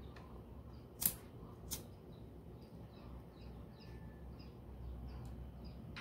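Two light clicks about half a second apart, about a second in, from handling a wire connector and heat-shrink tubing during the wiring, with faint chirping in the background.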